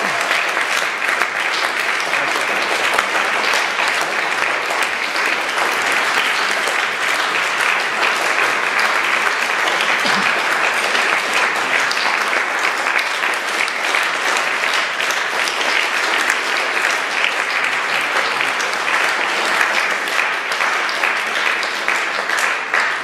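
Audience applauding steadily in a hall, a dense patter of many hands clapping, which cuts off suddenly at the very end.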